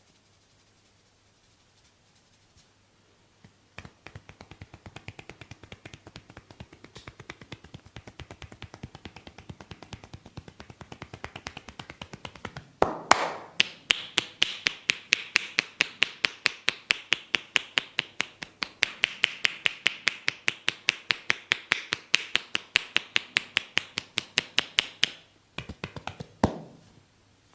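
Rapid, even tapping on a forehead in a tapping massage, several taps a second. It starts a few seconds in, fairly soft, turns much louder about halfway through, and stops a couple of seconds before the end after a few last separate taps.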